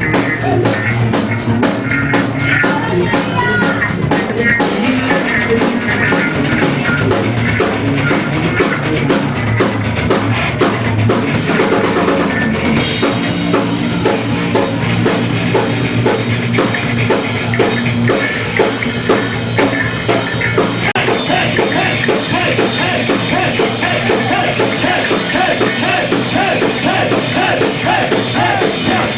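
Rock band playing live, drum kit driving a loud, dense rock passage. About thirteen seconds in, the sound thickens in the high end.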